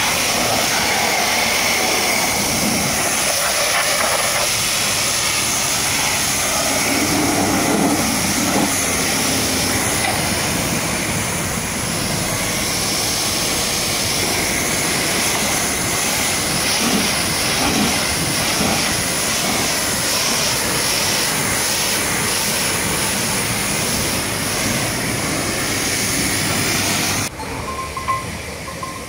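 High-pressure washer jet spraying water onto a truck: a loud, steady spray noise that cuts off suddenly near the end.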